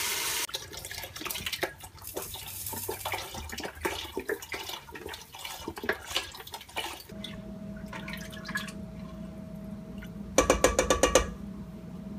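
Chicken broth poured from a carton into a stockpot of sautéed mushrooms and bell peppers, splashing and trickling irregularly. Near the end comes a quick run of loud clattering knocks.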